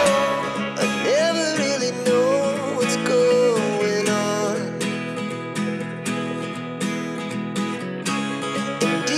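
Background music: a song with strummed acoustic guitar and a wavering melody line.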